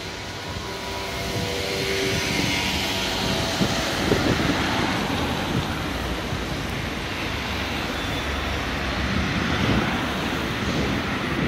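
Cars and a van driving past on a town street: engine hum and steady tyre-on-road noise that swells over the first couple of seconds and then holds.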